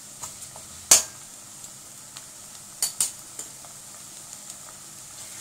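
Onions sizzling in hot oil in a steel karahi as ginger-garlic paste is added. A sharp tap comes about a second in, and two more come close together near three seconds.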